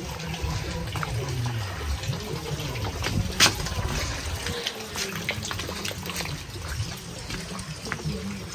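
Rainwater trickling and dripping, a steady wet hiss with many scattered sharp drips.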